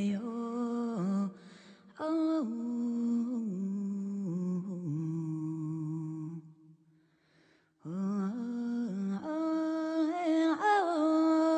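Background music: a slow, wordless hummed vocal melody in long held notes that slide between pitches, pausing for about a second midway.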